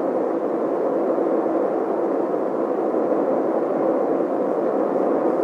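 Steady rush of a liquid-fuelled rocket engine firing, the Navaho's XLR-43-NA-1 booster burning alcohol and liquid oxygen, heard through an old film soundtrack. It cuts off suddenly at the very end.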